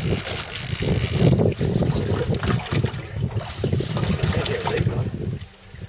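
Wind buffeting the microphone over water sloshing against a boat's hull, with a brighter rush of hiss in the first second or so and a quieter lull near the end.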